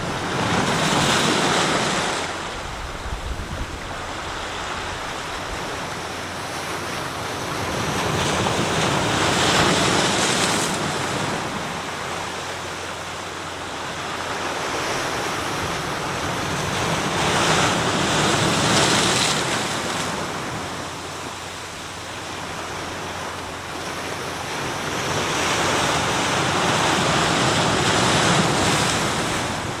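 Sea surf: waves breaking and washing ashore in four slow swells about eight seconds apart, with a steady hiss of water between them.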